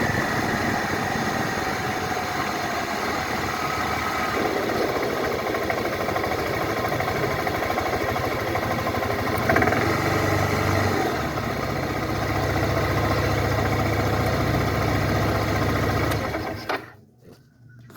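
2012 Suzuki Burgman scooter engine running, its tone shifting a couple of times as the load changes, in a recording made for the knocking the owner hears under acceleration. The engine sound cuts off sharply near the end.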